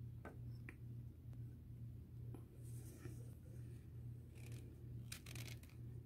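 Rechargeable plasma arc lighter: two sharp clicks of its switch, then short spurts of the electric arc's crackling hiss, the longest about half a second just before the end. A low steady hum runs underneath.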